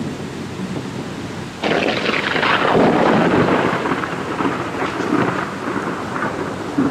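Thunder breaking suddenly about one and a half seconds in, then rolling on and slowly fading, over the steady noise of rain.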